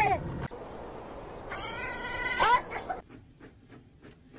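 A cat meowing: one drawn-out meow starting about a second and a half in, its pitch dropping at the end, followed by a few faint ticks.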